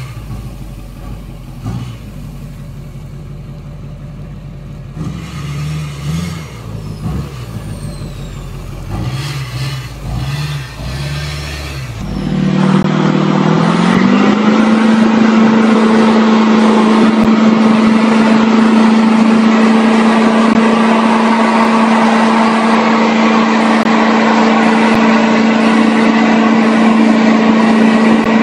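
Duramax diesel pickup engine revving in short bursts, pitch rising and falling several times as the truck works through rough ground. About twelve seconds in, another Duramax-powered GMC Sierra HD takes over, much louder, held at a steady high rpm in a burnout with its rear tyres spinning and smoking.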